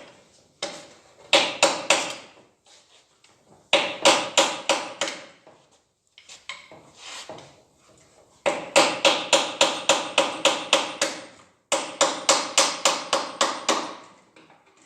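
Quick hammer taps on the G4NA engine's timing chain cover around its locating dowels, knocking the sealant-stuck cover loose. The taps come about four or five a second in bursts with short pauses between, the longest run starting about eight and a half seconds in.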